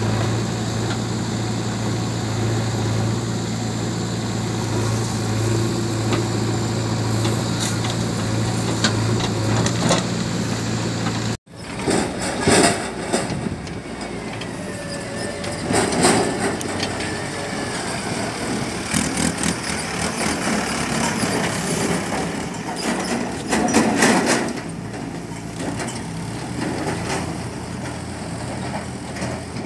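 Diesel engine of a JCB 3DX backhoe loader running steadily close by with an even low hum. About a third of the way in the sound cuts off abruptly, and rougher, more distant engine noise follows with a few louder bumps.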